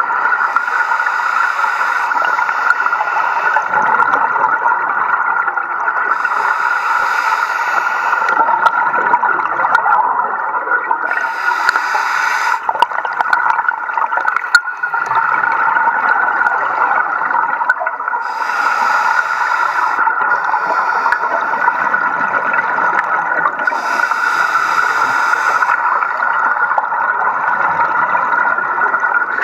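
Scuba regulator breathing and bubbles heard underwater through a camera housing: a steady bubbling rumble, with a hissing burst every five or six seconds as a diver breathes.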